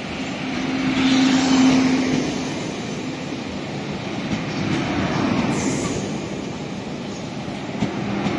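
A train running along the track past a station platform: continuous rail rumble with a steady low hum that fades about two seconds in, and the noise swelling and easing twice.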